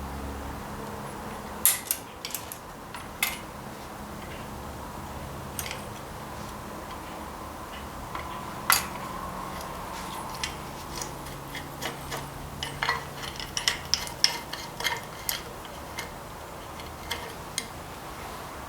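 Irregular light metallic clicks and taps of small metal parts and hand tools being handled, with a few sharper knocks and a quicker run of small clicks about eleven to fifteen seconds in, over a faint steady hum.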